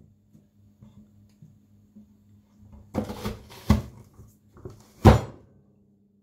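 Plastic press-through vegetable chopper pushing cucumber slices through its blade grid: about three seconds in a short crunching press, then two sharp plastic clacks as the lid hits home, the second, near the end, the loudest.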